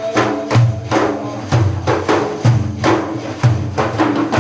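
Hand-drum percussion accompanying religious praise singing, playing a steady rhythm: a deep stroke about once a second with lighter, sharper strokes between.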